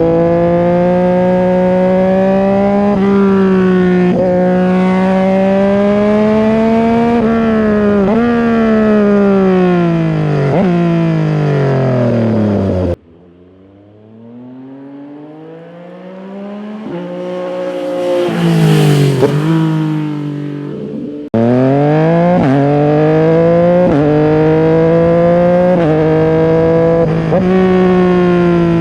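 Yamaha MT-09 SP three-cylinder engine through an SC-Project full exhaust with the dB killer removed, running under way, its note climbing and dropping through throttle and gear changes. About halfway through, the sound cuts to the bike heard from the roadside: it approaches, passes loudly with a falling pitch, and fades. A few seconds later it cuts back to the loud engine under way.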